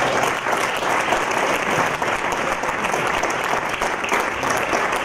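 Audience applauding steadily, a dense patter of many hands clapping at once, at the close of a talk.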